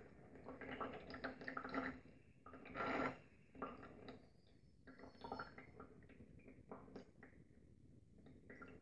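Distilled water being poured slowly through a funnel into a bottle, faint and uneven trickling and dripping, with a louder splash about three seconds in.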